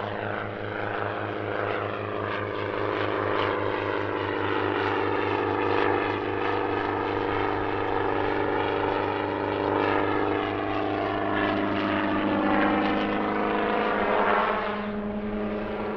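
Schweizer 300 light helicopter flying a display: its engine and rotor run steadily, and the tone sweeps up and down as the machine moves about.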